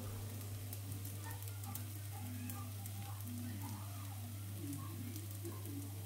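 A thin pancake sizzling quietly in a nonstick frying pan, with faint scattered crackles over a steady low hum.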